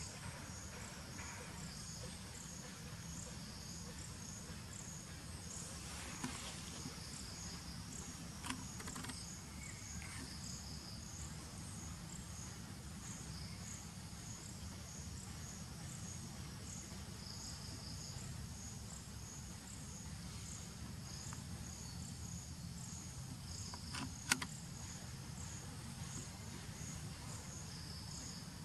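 Insects chirping outdoors in a steady high-pitched pulse, about two chirps a second, over a low background rumble, with a few faint clicks.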